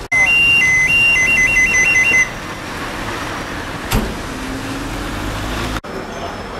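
Two-tone siren switching between a lower and a higher note, slowly at first and then rapidly, for about two seconds. Then steady street noise with a single knock and a faint low vehicle hum.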